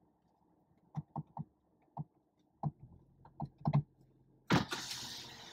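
About nine light clicks and taps inside a car, spread over a few seconds, then a sudden loud rush of noise about four and a half seconds in that slowly fades.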